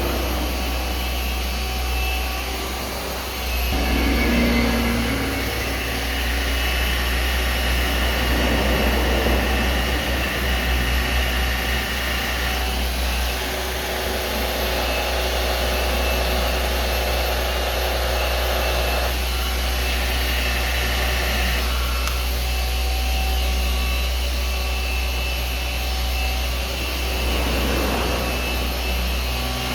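Electric machine polisher running on car paint to cut out a deep scratch, a steady motor whine whose pitch and load change every several seconds as the pad is worked.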